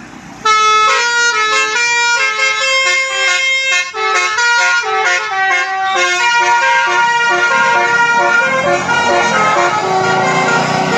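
A bus's telolet musical air horn playing a quick tune of short stepped notes, starting about half a second in. Engine and traffic noise rise underneath the horn in the last few seconds.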